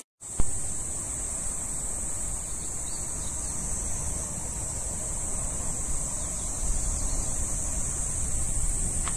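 A steady, high-pitched insect drone with a low rumble of wind on the microphone. The sound drops out for a moment at the very start, then comes back with a single click.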